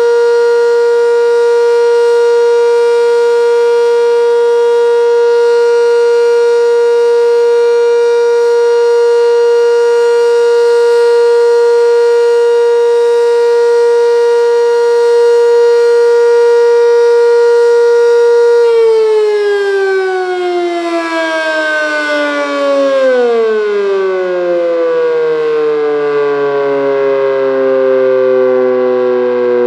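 Sentry 10V outdoor warning siren sounding the steady Alert signal, a loud, unwavering tone. About two-thirds of the way through it is switched off and winds down, its pitch falling slowly.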